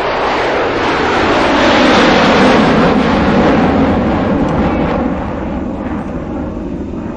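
An airliner's engines powering up for takeoff, heard from inside the cabin: a loud, even rushing noise that swells over the first two seconds or so and then slowly eases.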